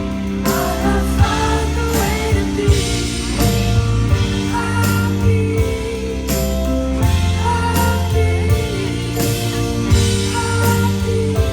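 Live concert music from a band: sustained keyboard chords over a heavy bass with a steady beat, and a woman singing.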